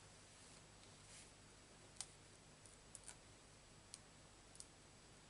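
Near silence with a handful of faint clicks and ticks from small paper pieces being handled: the backing peeled off tiny foam dimensionals and a die-cut card compass pressed onto a card. The sharpest click comes about two seconds in.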